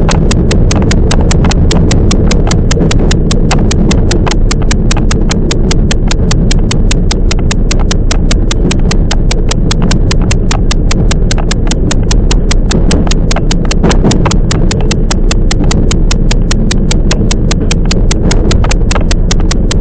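A Toyama Chiho Railway 10030 series electric train running, with a steady low rumble and a fast, very even clicking, about four to five clicks a second.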